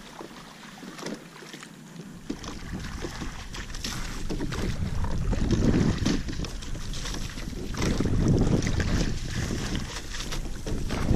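A single racing scull under way: water rushing and splashing along the hull as the sculling oars work through the water, with many small ticks and splashes. Wind rumbles on the microphone in swells every two to three seconds, and the whole grows louder over the first few seconds.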